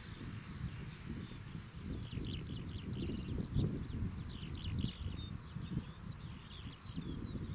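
Gusty wind rumbling on the microphone, with birds singing in quick, high chirps and trills from about two seconds in.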